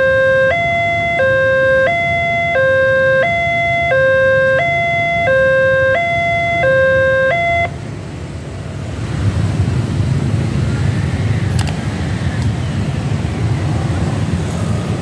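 Railway level-crossing warning alarm from the pole-mounted loudspeaker: a loud two-tone electronic signal alternating high and low about every two-thirds of a second, cutting off suddenly about eight seconds in. After it, the engines of motorcycles and cars crossing the tracks rise to a steady rumble.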